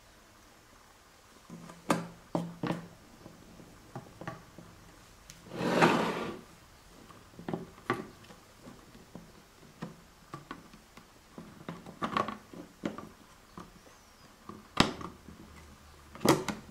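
Handling noise as a circuit board is set into a plastic equipment case: scattered knocks and clicks of board and plastic against a wooden bench. A longer scraping rustle comes about six seconds in, and two sharp clicks near the end.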